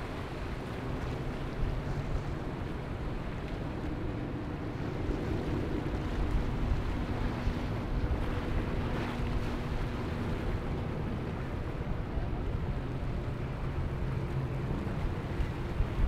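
Boat's twin Suzuki outboard motors running at speed, a steady low hum through the first ten seconds or so, over the rush of waves and wake spray, with wind buffeting the microphone.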